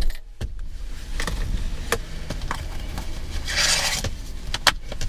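Rustling and small clicks of a person settling into a car's driver's seat, then the seatbelt webbing drawn out of its retractor with a brief swishing rush about three and a half seconds in and a few sharp clicks near the end.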